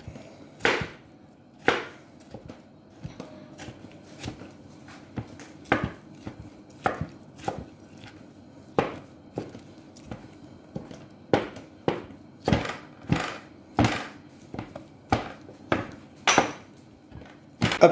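Chef's knife chopping chanterelle mushrooms on a wooden cutting board: irregular sharp knocks of the blade on the board, about one a second, coming a little faster in the second half.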